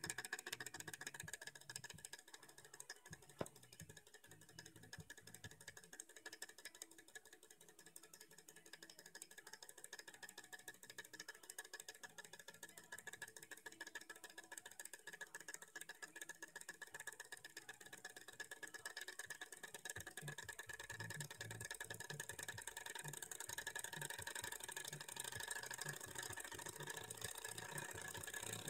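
HB31 model Stirling engine running after a push start, its flywheel and linkages making a rapid, even clicking rattle over a faint steady whine. It gets louder in the second half as the engine picks up speed.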